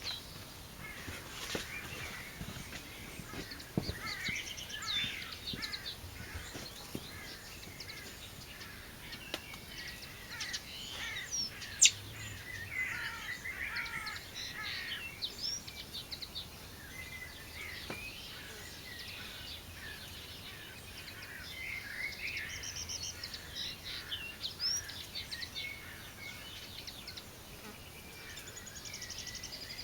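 Outdoor birdsong: many short chirps and warbled phrases from several birds, overlapping without a break. A single sharp click about twelve seconds in.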